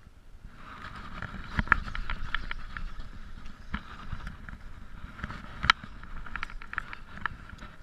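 Shimano Stradic Ci4+ spinning reel being cranked: a steady whir from the reel with many small clicks, and a few sharp knocks from handling the rod, the loudest near the end.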